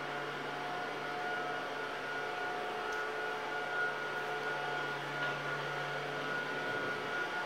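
The small battery-powered fan of an air-hover soccer disc whirring steadily as the disc floats on its cushion of air. The sound is a constant hum with a few steady tones, and its lowest hum fades out shortly before the end.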